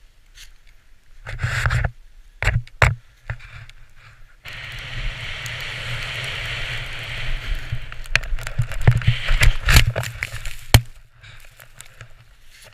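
Snowboard riding through deep powder snow: a steady rushing hiss for several seconds with frequent sharp knocks from the board hitting bumps. It is preceded by a few short knocks and scuffs as the rider gets up from sitting in the snow, and it fades near the end.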